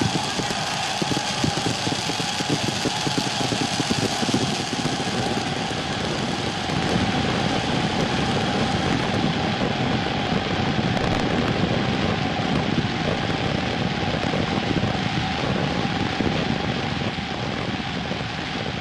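Stadium crowd roaring, with a dense, continuous crackle of firecrackers going off in the stands.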